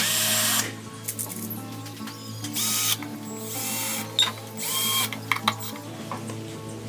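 Power drill running in three short bursts of about half a second each, its motor whining up and down.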